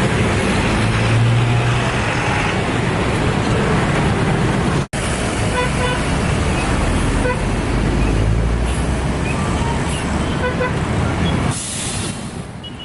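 Bus engines and traffic noise with a low rumble, broken by short horn toots at several pitches from a multi-tone telolet bus horn. A brief dropout about five seconds in.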